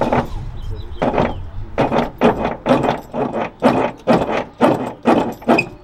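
A hand tool worked hard in quick repeated strokes on the car's suspension, about two to three loud strokes a second, freeing a stuck part.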